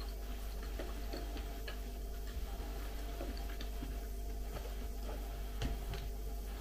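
Faint, irregular light clicks of chopsticks against plastic takeaway containers, over a steady low hum.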